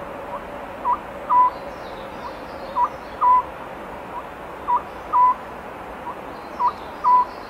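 Oriental scops owl singing: a repeated three-note phrase, a soft short lead note followed by two clear hoots, the last held a little longer, four phrases about two seconds apart.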